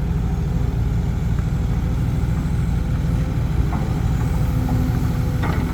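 Heavy diesel dump truck engine running steadily with a deep drone as the truck works along a muddy track. A steady higher tone joins near the end.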